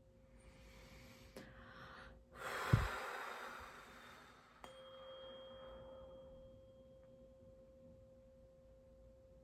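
Tuning fork humming one steady tone. A few seconds in there is a soft thump and a breathy whoosh, then the fork is struck again about halfway through and rings on with a faint higher overtone.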